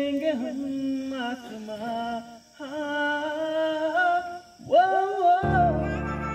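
A single voice singing a slow melody unaccompanied, in short phrases with brief pauses. About five seconds in, soft background music with sustained low chords takes over.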